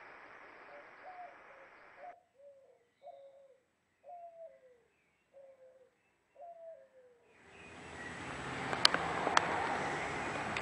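A dove cooing outdoors: about six short coos, each falling in pitch, roughly one a second, after a steady hiss stops about two seconds in. Near the end a louder hiss rises, with a few sharp clicks.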